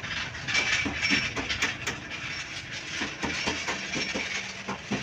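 A steady hiss with many irregular sharp clicks and knocks, like hand tools and parts being handled in a workshop.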